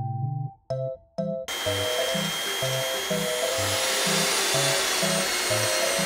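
Background music with a plinking melody and a steady bass beat. About one and a half seconds in, a small electric motor starts whirring with a loud, hissy, steady whine and keeps running.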